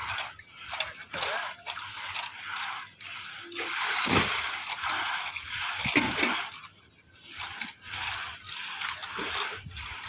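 Wet concrete sloshing and scraping in irregular bursts as it is spread and worked over steel reinforcement bars.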